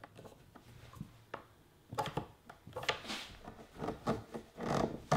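Clamps being fitted and tightened on a glued plywood drawer box: scattered clicks and knocks of clamp jaws and bars against the wood, with a few short rubbing rasps as they are slid into place and screwed down.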